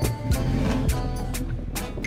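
Background music with a steady drum beat over bass.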